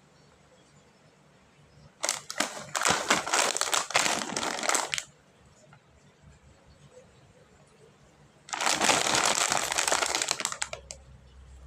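Plastic snack wrapper crinkling and rustling in two bursts, the first about three seconds long and the second about two, with a quiet pause between.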